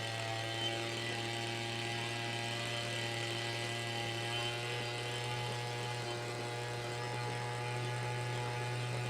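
Gas leaf blower engine running steadily at constant speed, a buzzing hum heard from about 20 feet away.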